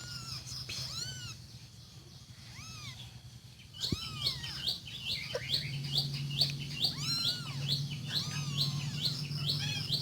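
Newborn kittens mewing in thin, high calls that rise and fall in pitch. The calls come a few at a time at first, then from about four seconds in several kittens cry over one another, several calls a second.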